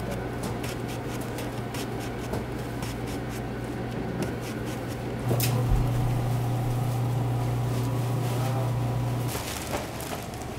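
Tomatoes being pushed through a plastic mandoline slicer, with repeated light clicks and knocks. Under them is a steady low electrical hum that grows louder for a few seconds after a sharper knock about five seconds in.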